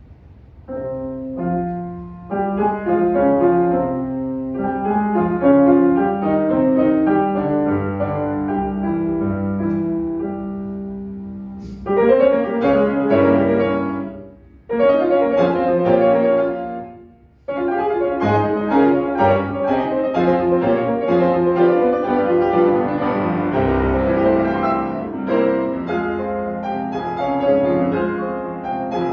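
Two grand pianos, one a C. Bechstein, played together as a piano duo. The playing starts about a second in and stops briefly twice, near the middle, before going on.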